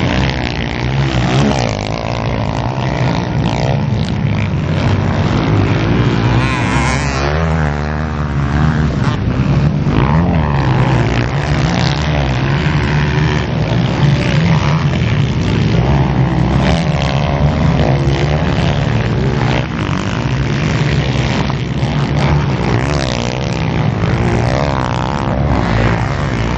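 Several motocross dirt bikes racing on a dirt track, their engines revving up and down as they corner and jump. The sound is loud and continuous, with the engine notes overlapping and rising and falling throughout.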